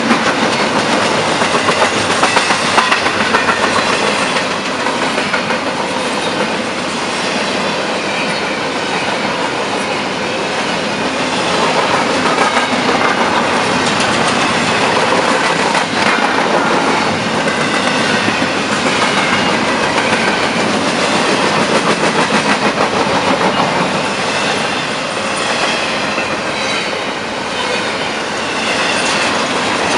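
Freight cars of a passing train rolling by close to the track: steel wheels clacking in a steady rhythm over the rail joints, with the rumble and rattle of the cars.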